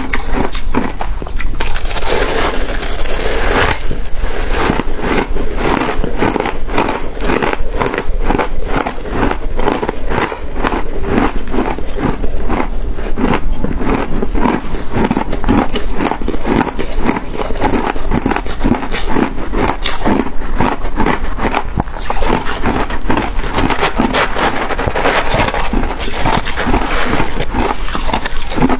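Close-miked crunching and chewing of shaved ice, a steady run of rapid, crisp crunches.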